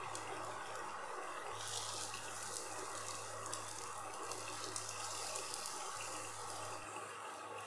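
Seaweed egg pancake sizzling steadily in oil in a nonstick frying pan, with scattered light clicks as the pieces are turned with chopsticks and a spatula. A steady low hum lies underneath.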